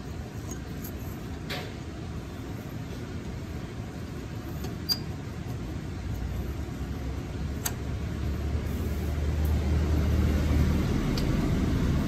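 Engine running with a low, steady rumble that grows louder in the second half, with a few light metallic clicks.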